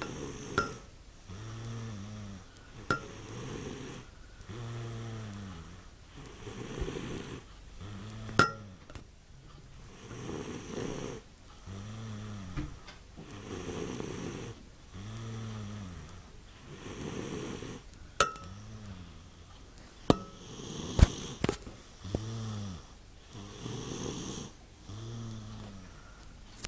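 A man snoring in his sleep, a rhythmic pitched snore on each breath roughly every two seconds, with breathy noise between. Several sharp clicks cut in, the loudest about 21 seconds in.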